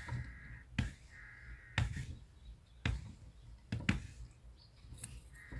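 Potter's wheel turning under a clay pot being shaped by hand: a sharp knock about once a second over a low steady rumble. A crow caws twice in the first two seconds and again near the end.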